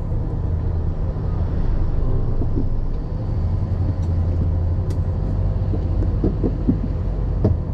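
Motor vehicle engine running steadily with road rumble, heard from on board, with a few brief knocks near the end.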